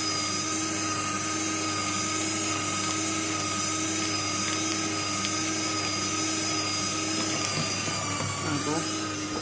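Electric paper shredder running, shredding paper, with a steady motor whine. Its pitch dips briefly near the end.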